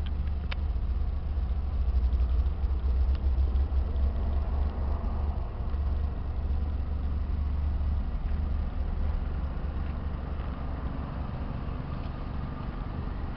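Suzuki Cappuccino's small three-cylinder turbo engine idling steadily, heard from inside the cabin as a low rumble.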